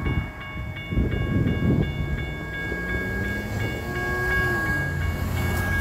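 Railroad crossing warning bell ringing in quick, even strikes, about two to three a second, over low traffic and wind rumble. The crossing is stuck in its warning cycle because a gate arm is caught on the overhead signal lights.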